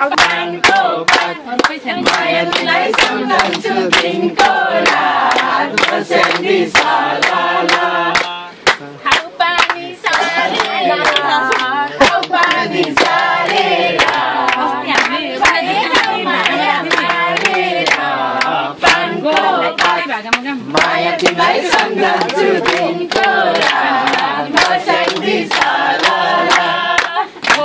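A group of people singing together in chorus to a steady beat of hand-clapping, with several voices at once and some whoops.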